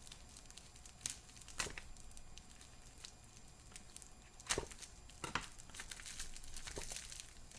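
A heavily taped mail package being pried and torn at: tape and cardboard crinkling and tearing, with a few sharp snaps.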